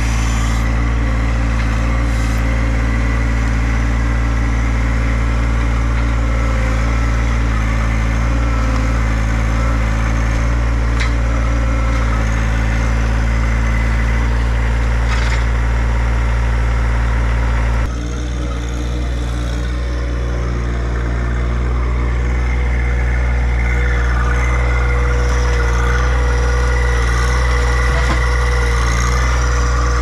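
A John Deere sub-compact tractor's diesel engine running steadily while it works, carrying a log on its front-loader pallet forks. About two-thirds of the way through the sound changes abruptly and the engine runs on with a clearer, steadier tone.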